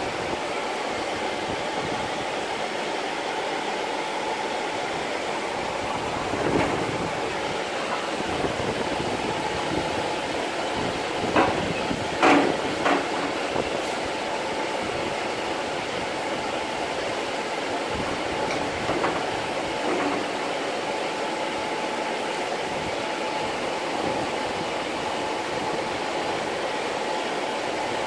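Steady mechanical hum throughout, with a few short, sharp metallic clicks and knocks from thin sheet metal being handled in a bending brake, most of them clustered about halfway through.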